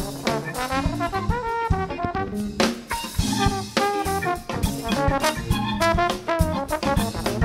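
Live funk band recording: a brass horn playing short phrases with bending notes over a busy drum kit.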